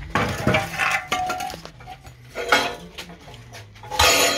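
Hard metal objects clinking and clattering, one clink ringing on for about a second near the start, with a louder clatter near the end.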